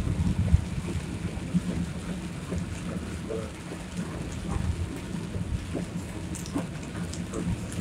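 Heavy rain hitting a car, with many scattered drop ticks over a steady low rumble of the car travelling through the downpour.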